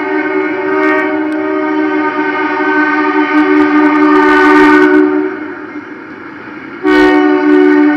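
Diesel locomotive horn blown for a road crossing: a long, loud chord that breaks off about five seconds in and sounds again a second and a half later.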